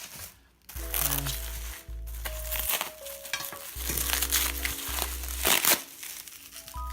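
Plastic packaging crinkling and rustling as suspension arms are unwrapped, over background music with sustained notes and bass.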